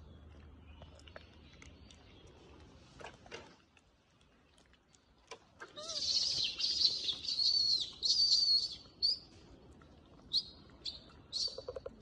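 Birds chirping: a run of loud, high, warbling chirps about halfway through, then a few short separate chirps near the end.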